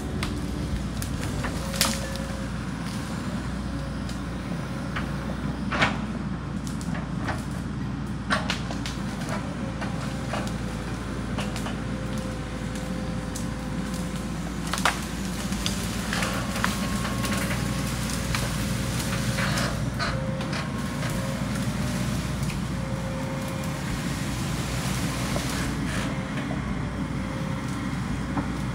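A John Deere excavator's diesel engine runs steadily while the machine drags an uprooted tree and brush. Branches crack and snap several times, in sharp single cracks spread through the stretch.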